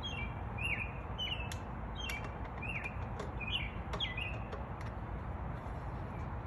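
Small birds chirping: a run of short, quick, sweeping high chirps, several a second, that stops about four and a half seconds in, over a steady low background rumble.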